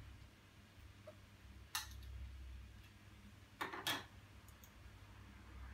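Light handling clicks on a desk: one about two seconds in and a quick pair near four seconds, as eyeglasses are taken off and an iPad is set into a tablet stand. A faint low hum runs underneath.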